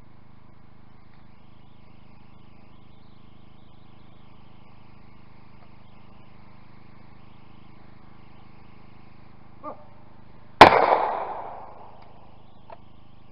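A single shotgun shot: one sharp crack about ten seconds in that dies away over about a second and a half, with a faint click shortly before it.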